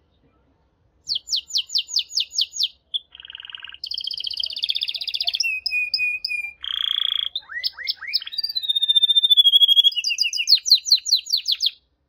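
Male domestic canary singing a long, varied song that starts about a second in: a run of quick falling notes, then buzzy and rapid trills, a held whistle and rising glides, closing with another run of quick falling notes.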